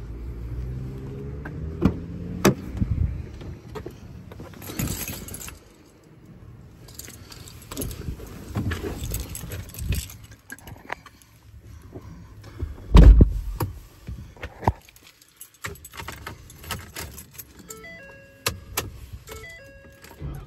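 Someone getting into a Ford F550 cab: rustling and knocks, a heavy thump from the door shutting about 13 seconds in, and keys jangling. Near the end a few short electronic chime tones sound from the dash.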